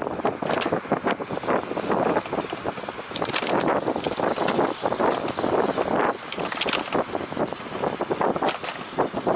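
Wind buffeting the microphone while riding a bicycle, rising and falling unevenly, with frequent small knocks and rattles from the ride.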